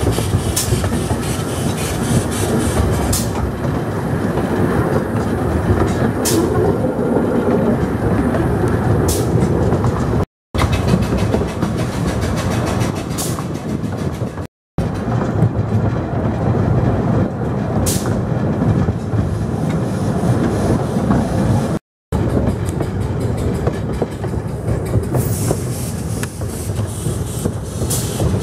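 A 12¼-inch gauge miniature steam train running, heard from a passenger coach: a steady rumble of wheels on track with a sharp click every few seconds. The sound cuts out completely three times for a moment, about ten, fourteen and twenty-two seconds in.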